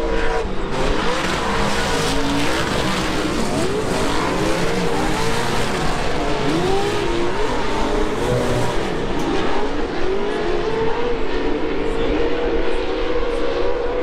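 Several 1000 cc side-by-side (UTV) race engines revving as they race on a dirt track, many overlapping engine notes rising and falling throughout.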